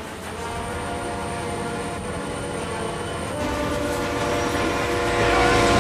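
Steam train sound effects: a held, chord-like locomotive whistle over the steady running of a train. It grows louder and fuller from a little past halfway to the end.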